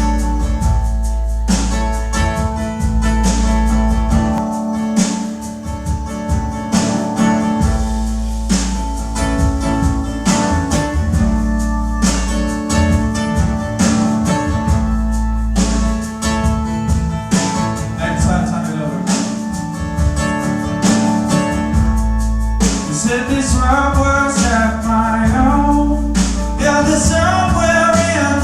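Live band music: guitar over a steady drum beat, with a voice singing in the later part.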